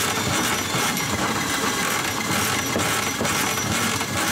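Milwaukee powered drain snake running, its spinning steel cable rattling and clicking against the pipe as it is fed down a greasy, partly blocked kitchen sink drain line.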